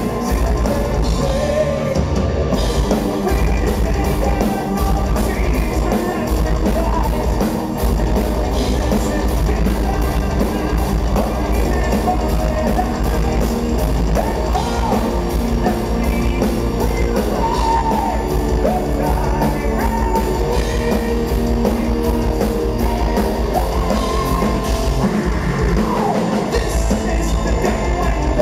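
A power metal band playing live and loud: a male lead singer's vocals over distorted electric guitars, bass guitar and a drum kit, heard from the audience.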